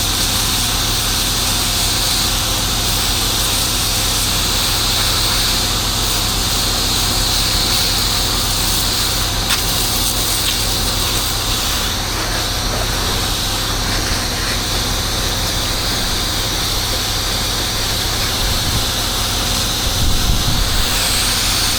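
Pressure washer engine running steadily under a continuous hiss of water spraying from the wand.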